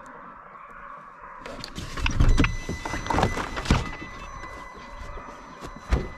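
A vehicle door is opened about a second and a half in, letting in the open-air sound, followed by knocks and clattering as someone moves in the doorway, and one sharp thump near the end.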